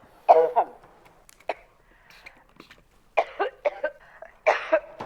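A woman in a coughing fit, harsh coughs in clusters. One burst comes just after the start, a single short cough about a second and a half in, then a run of several coughs from about 3 to 4 seconds, and another cluster near the end.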